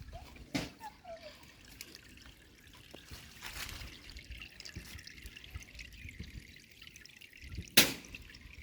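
Water trickling and dripping, with scattered small drips and splashes. A sharp splash or knock comes shortly after the start, and a louder one near the end.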